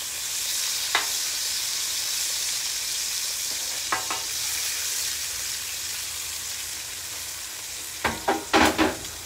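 Bacon sizzling on a flat-top griddle, a steady frying hiss. A metal spatula or press clicks against the griddle twice, and a cluster of metal clanks comes near the end.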